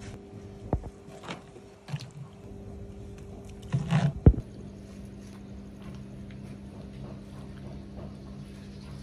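Cooked beef pieces handled wet and dropped into a plastic colander: a few soft slaps and knocks, the loudest cluster about four seconds in. A steady low hum runs underneath.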